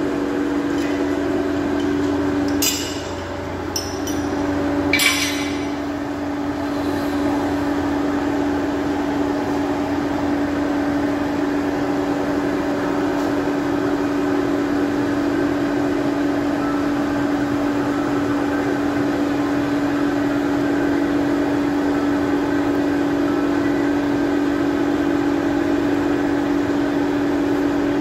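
Forge furnace's air blower running with a steady hum. About three sharp metal clinks in the first few seconds as the rod is handled at the fire.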